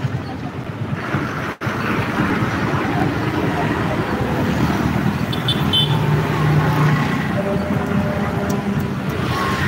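Riding a motorcycle through city traffic: steady engine and road noise with wind rumble, a brief cut-out about one and a half seconds in, and short horn toots a little past halfway.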